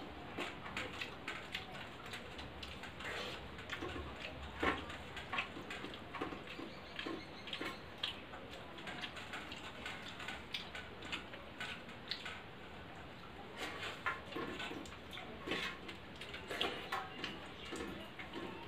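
Eating sounds of rice and bitter gourd bhujiya eaten by hand: irregular wet chewing and lip-smacking clicks, with fingers working the rice against a steel plate.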